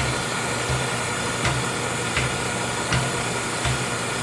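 Moore G-18 jig grinder running: a steady machine hum with a faint high whine, pulsing in a regular beat about every three-quarters of a second.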